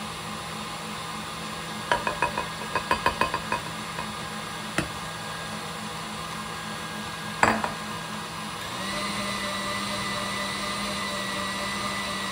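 A metal utensil clinking rapidly against a mixing bowl about ten times, then two single knocks against the bowl. About nine seconds in, a small electric kitchen-appliance motor starts and runs steadily, over a low background hum.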